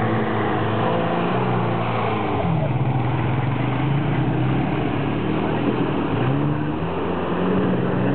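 Quad bike (ATV) engine running as it drives across mud, its pitch rising and falling with the throttle several times.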